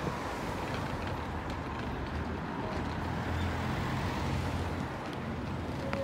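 Road traffic: cars driving past on a city street, with a steady low engine hum that swells and eases as they go by.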